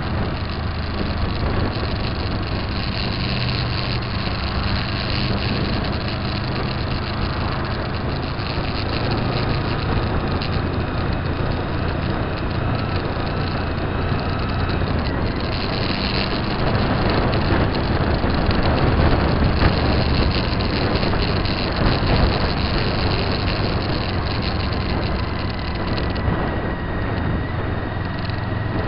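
Steady engine and road noise of a moving vehicle, with wind rumbling on the microphone; it grows a little louder for a few seconds past the middle.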